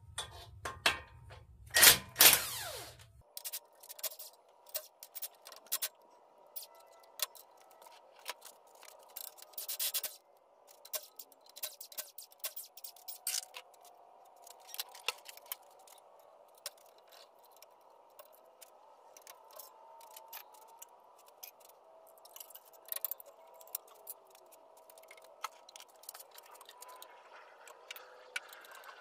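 A cordless power tool with a socket runs in a few short bursts in the first three seconds, spinning fasteners off a VW air-cooled engine during teardown. After that come scattered metallic clicks and taps as tools, bolts and engine parts are handled.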